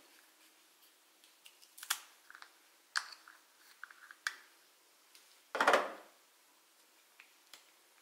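Small plastic cosmetic pigment jar being handled and twisted open: a series of light plastic clicks and scrapes, with one louder, longer rustling scrape about five and a half seconds in.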